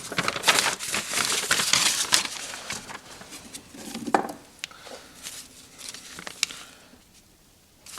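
Old paper road map rustling and crinkling as it is handled and folded. The rustling is densest over the first few seconds, then thins to a few light rustles and taps and dies away near the end.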